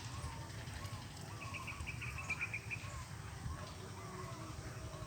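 Birds calling: a short rising-and-falling chirp repeated about twice a second, with a quick high rattling trill for about a second near the middle, over low rumbling background noise.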